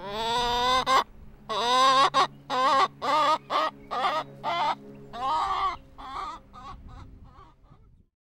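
Hen cackling: one long squawk, then a run of shorter clucking calls that grow quieter and fade out near the end.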